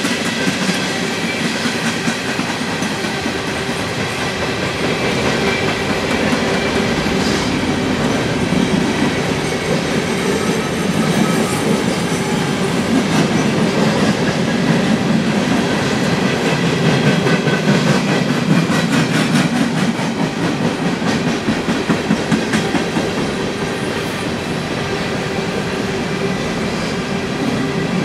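Empty steel coal cars of a freight train rolling past, with a steady rumble and rattle and the clickety-clack of wheels over rail joints. The sound is a little louder in the middle.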